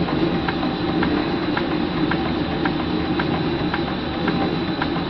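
Early American box-bed steam engine (3-inch bore by 6-inch stroke) running slowly and evenly on about 20 psi of live steam. It makes a steady mechanical churn and hiss, with a light regular click about twice a second.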